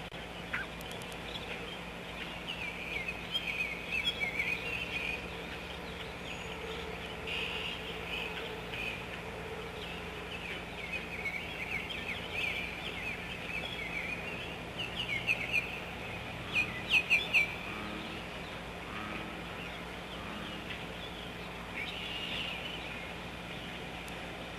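Baby poultry chicks (peeps) chirping softly in a continuous chatter of short, high trilling chirps, the drowsy sound called "snoring", with a few louder peeps about 15 to 17 seconds in. A steady low hum runs underneath.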